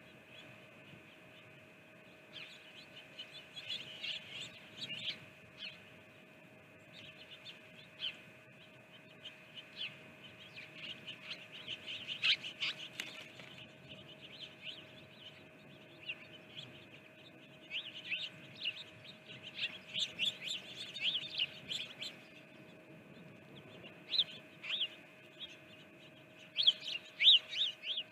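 Small songbirds chirping in quick, busy clusters of short, sharp calls, loudest about halfway through and near the end, over a faint steady tone.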